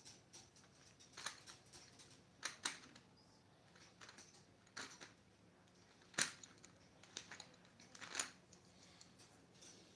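Coloured pencils clicking and knocking together as they are handled: about six light, irregular taps, the sharpest about six seconds in.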